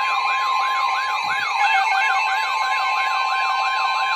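Electronic siren-style alert tone sounding ahead of a blizzard warning: rapid rise-and-fall sweeps, about three a second, over a steady high tone.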